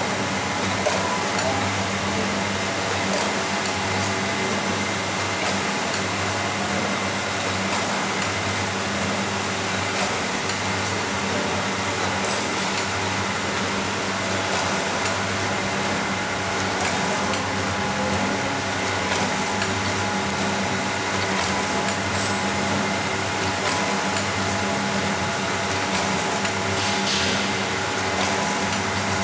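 Automatic liquid pouch packing machine running steadily as it fills and heat-seals PE film pouches: a constant mechanical hum with a regular low pulsing cycle and faint clicks.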